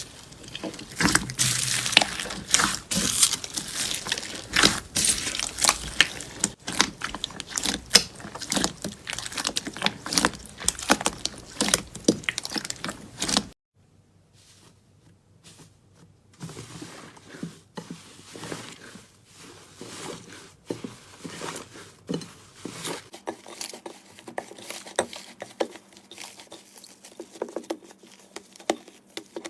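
Slime being squeezed and pressed by hand, giving a dense run of crackles and pops. The sound cuts off sharply about halfway through and gives way to quieter, sparser squishy pops, with a faint low hum in the last few seconds.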